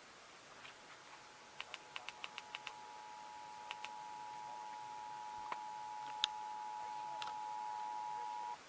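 Emergency Alert System attention signal played over the radio: the two-tone alert, two steady tones sounding together just below 1 kHz, starts a second or two in, grows slightly louder and cuts off suddenly near the end. A quick run of sharp clicks comes as the tone begins.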